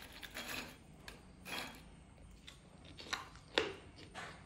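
Crisp fried okra-and-peanut fritters in gram-flour batter crunching, a few scattered sharp crackles, the sound of their crispness.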